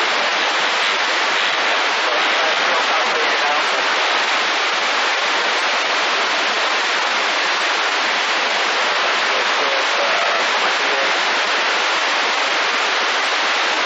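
Radio receiver hissing with steady static between transmissions, no station coming through.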